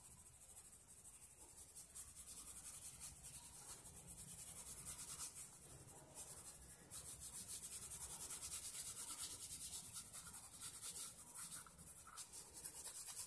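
Pencil lead scratching on paper in quick back-and-forth shading strokes, faint and rapid.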